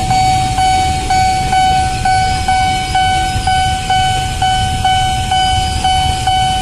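Level-crossing warning bell ringing as one steady, repeating electronic tone, about two strokes a second, over a low rumble from the passing KRL electric commuter train and the waiting traffic.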